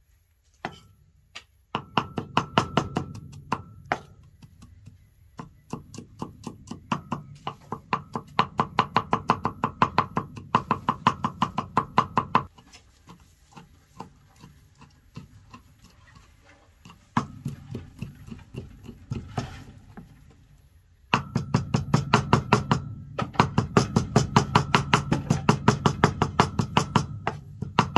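A cleaver rapidly chopping on a round wooden chopping block, mincing garlic. It comes in several runs of quick, even strokes, with short pauses between them.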